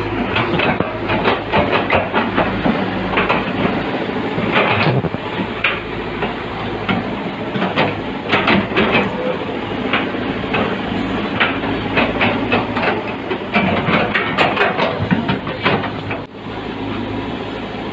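Heavy construction machinery's diesel engine running steadily, with frequent sharp metallic clanks and knocks over it.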